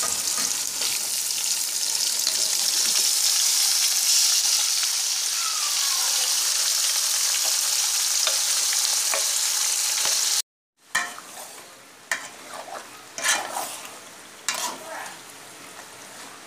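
Marinated goose meat sizzling in hot oil in a pot of fried onions: a steady, loud frying hiss. After a brief cut about ten seconds in, the sizzle is much quieter, and a spoon scrapes and knocks against the pot several times as the meat is stirred.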